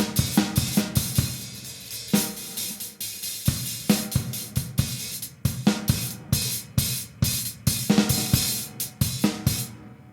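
Drum kit played in a beat, with bass drum, snare, hi-hat and cymbals being struck during a sound check. The playing thins to a few heavy single hits around the third second, picks up again, then stops just before the end and rings out.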